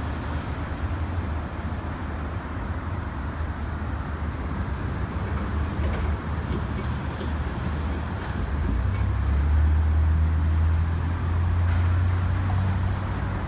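Street traffic: a steady low rumble of passing vehicles, with one vehicle's engine hum growing louder about nine seconds in and holding until near the end.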